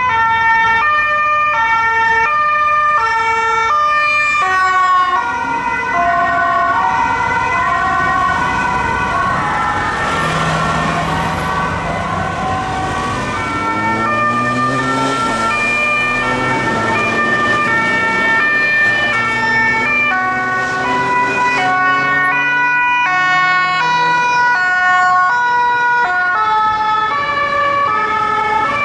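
Two-tone sirens of fire-service ambulances alternating between a high and a low note. In the middle, vehicle engines rising in pitch and road noise join the sirens.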